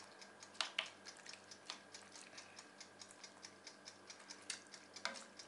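Faint clinks and scrapes of a slotted serving spoon against a pot while thick baked beans are scooped onto a plate, with a few sharper knocks early and near the end, over a faint rapid ticking.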